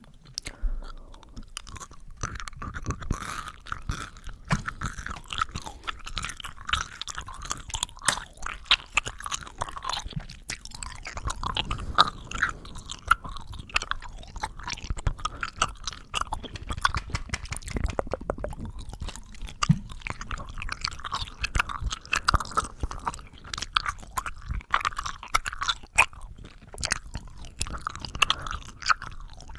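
Mouth sounds made close to the microphone: a steady run of quick clicks and smacks of lips and tongue.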